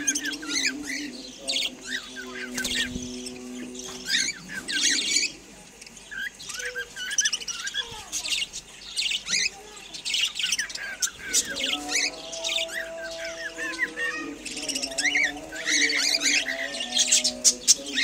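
Flock of budgerigars chattering: a busy stream of short, high, overlapping chirps and squawks, growing louder near the end.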